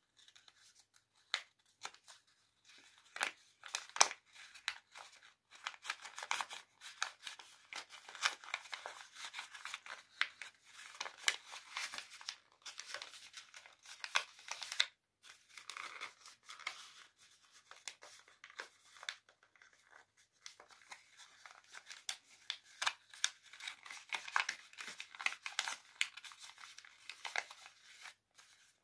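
Paper crinkling and rustling as hands fold, crease and pull open a folded paper boat, in irregular crisp crackles with a couple of brief pauses.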